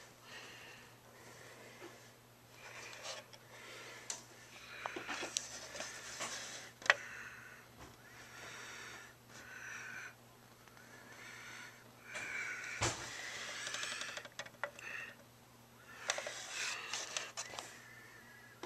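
Handling noise from a hand-held camera and the device being moved, with rustling and a few sharp knocks, the loudest about seven seconds in, over a steady low hum.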